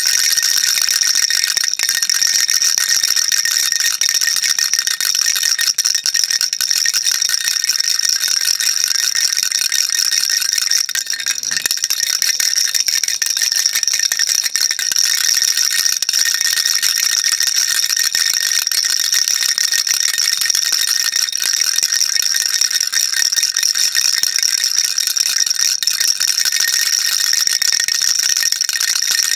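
Baby rattle shaken continuously: a dense, steady, high-pitched rattling that dips briefly about eleven seconds in.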